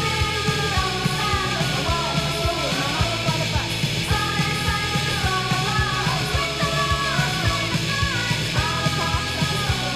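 Noise-pop rock song: singing over electric guitar, bass and a steady drum beat.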